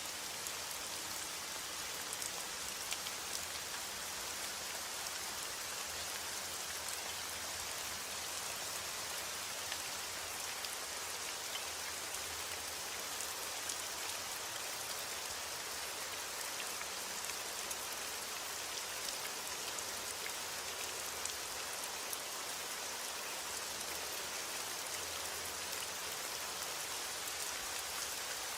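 Steady heavy rain falling, an even hiss with many fine drop ticks on a surface.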